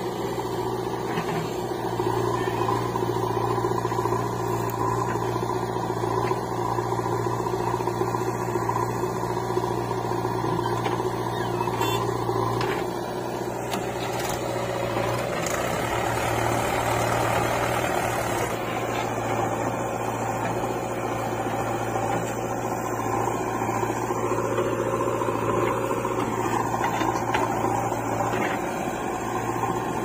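Diesel engines of a Mahindra 475 DI tractor and a JCB 3DX backhoe loader running steadily side by side, with a short rise and fall in pitch about three-quarters of the way through.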